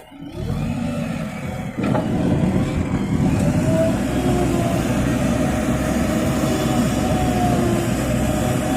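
JCB 3DX backhoe loader's diesel engine running under working load, with a faint wavering whine over it; the sound gets louder suddenly about two seconds in.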